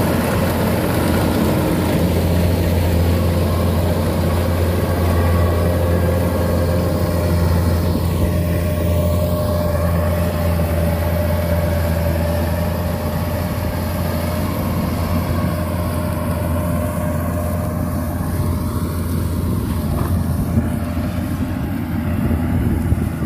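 Rice combine harvester's diesel engine running steadily with a deep hum while it cuts and threshes standing rice, growing a little fainter in the second half as the machine moves away.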